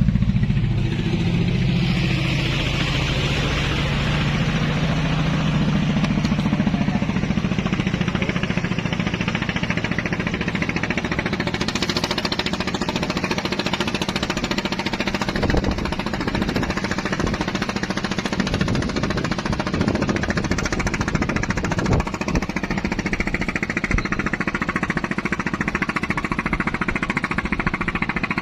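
Boat engine running steadily with a fast, even knocking beat.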